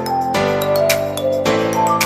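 Background music: a bright melody over sustained chords that change about once a second, with a steady beat.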